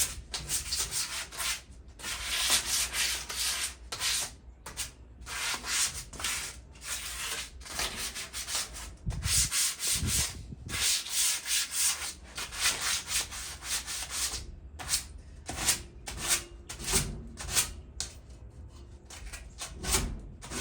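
Sandpaper scrubbed back and forth by hand on a rusted metal patio table leg, stripping surface rust in quick, uneven strokes.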